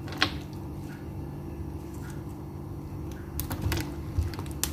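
Pieces of boiled corn cob being dropped into a wok of curry with chopsticks: a few short, light clicks and taps of chopsticks and corn against the pan, one just after the start and several close together near the end, over a low steady hum.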